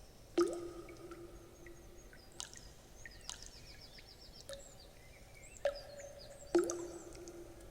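Water drops plinking into water, each with a short ringing tone, the loudest about half a second in and near the end. Small birds chirp, with a brief trill in the middle.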